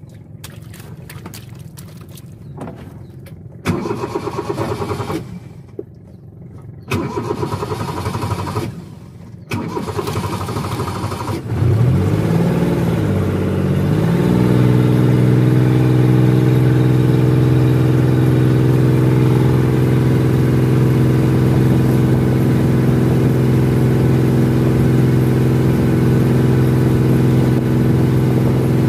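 A small fishing boat's engine starting: a few short bursts of noise, then about twelve seconds in the engine catches, its pitch rising and falling briefly before settling into a steady, loud run as the boat gets under way.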